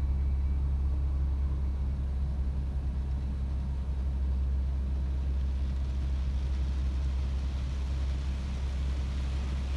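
Automatic car wash heard from inside the car's cabin: a steady low machine hum, joined from about halfway by a hiss of water spraying onto the windshield that grows louder.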